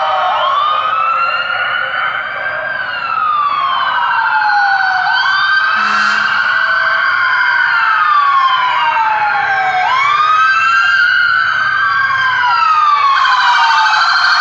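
Fire truck sirens wailing, at least two at once and out of step. Each rises quickly and then falls slowly, repeating about every four seconds.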